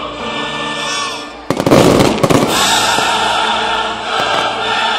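Fireworks going off: a quick cluster of loud bangs and crackles about a second and a half in, lasting about a second, over music with a choir that plays throughout.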